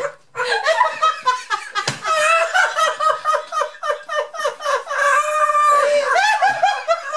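Several people, adults and children, laughing hard and uncontrollably, with high-pitched giggling and shrieks of laughter. There is one sharp thump about two seconds in.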